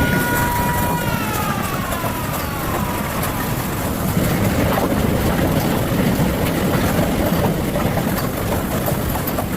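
Loud, steady roar of a heavy storm, with wind and falling hail or rain hammering down. In the first few seconds a pitched tone with overtones slides down in pitch and fades out.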